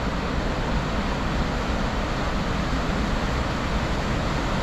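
Steady, even rushing noise with no pitch or rhythm, loud and unbroken.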